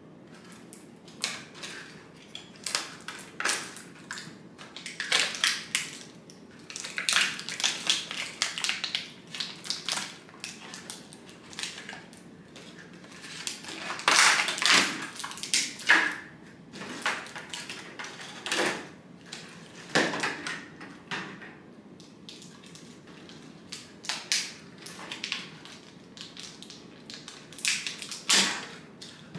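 Stiff clear plastic blister packaging crinkling and crackling in irregular bursts as hands pull small toy accessories out of their moulded tray.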